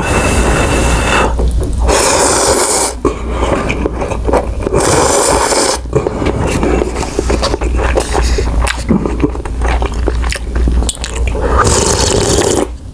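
Close-miked eating of spicy instant cup noodles: loud slurps of noodles with wet chewing between them. Near the end comes a long slurp of hot broth drunk straight from the cup.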